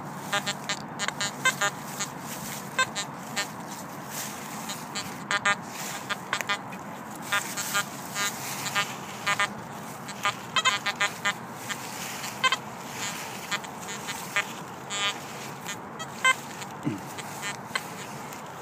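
XP Deus metal detector chattering with many short, irregular beeps as the coil sweeps heavily iron-littered ground: constant false signals from the iron make the ground very noisy.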